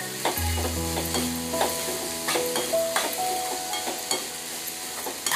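A metal spatula stirs and scrapes chopped onion, coriander leaves and turmeric sautéing in an aluminium pan, with repeated scrapes and clicks against the pan over a steady frying sizzle.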